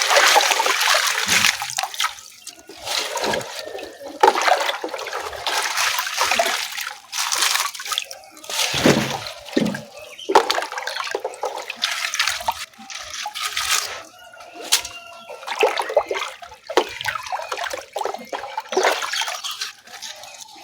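Water pouring and splashing in uneven surges, with a few knocks.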